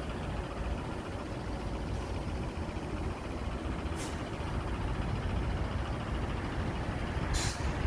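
Steady city street traffic: buses and cars running on a wet road. Two short high hisses break through, one about four seconds in and one near the end.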